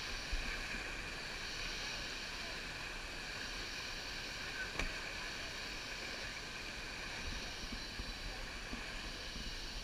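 Steady rushing of a rain-swollen river's fast current around a raft.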